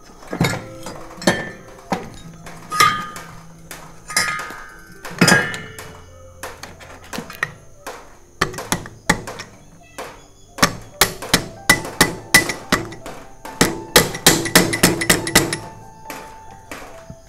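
Metal tools tapping and clinking on a two-stroke motorcycle engine's bare crankcase and parts during reassembly: scattered metallic knocks, a few of them ringing briefly, then a quick run of sharp taps about three a second lasting several seconds.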